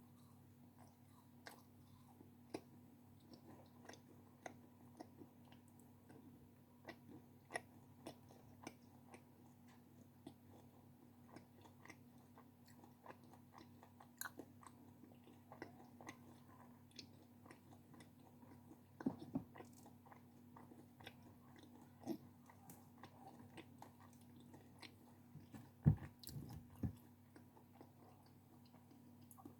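A person chewing and biting snacks and sweets close to the microphone: a steady run of small, faint mouth clicks, with a few louder bites in the second half.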